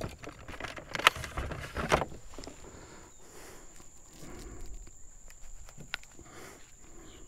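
Handling noise of hands and gear on a plastic fishing kayak while a just-caught flounder is threaded onto a stringer: rustling and scraping, with two sharp knocks about one and two seconds in, then quieter fumbling with a single click near the end.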